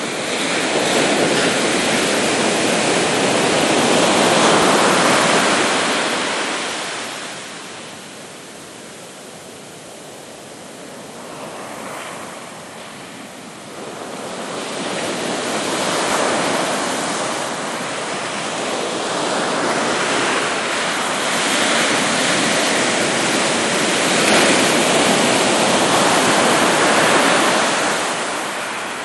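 Ocean waves breaking and washing up onto a sandy beach, in slow swells of rushing surf with a quieter lull between them.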